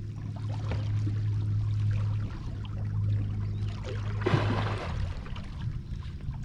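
A bass boat's bow-mounted electric trolling motor hums steadily, then cuts off a little under five seconds in. Just before it stops, something splashes loudly at the water's surface among the lily pads.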